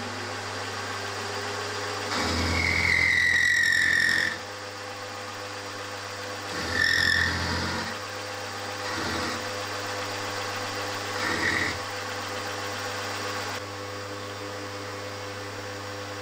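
Milling machine running steadily while an end mill cuts a crankshaft web clamped on a rotary table. The cut comes in four bouts: the first, about two seconds in and lasting two seconds, is the loudest and carries a high squeal, and shorter ones follow about seven, nine and eleven seconds in.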